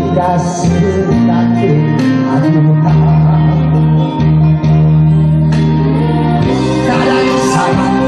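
A trot song performed live: a man singing into a handheld microphone over instrumental accompaniment with steady held bass notes.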